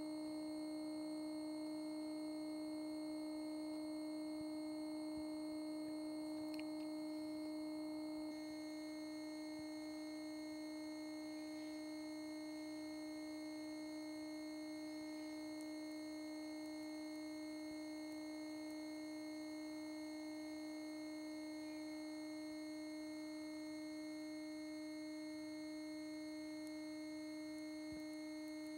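Steady electronic hum from a TV playing the blank black-screen end of a VHS tape: a single low tone with a stack of overtones. It steps slightly quieter about eight seconds in.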